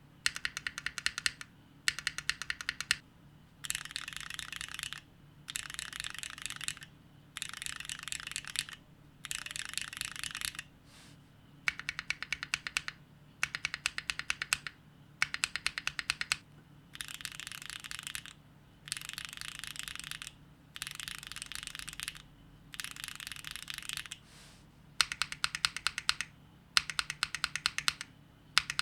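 Linear mechanical keyboard switches on a Neo60 Core keyboard, pressed in short groups of separate sharp keystrokes that alternate with bursts of very rapid repeated key presses, each group lasting about a second with brief pauses between. The test moves through Gateron L'Orange, Cherry Nixie and HMX Sonja switches, which are rail bottom-out linears.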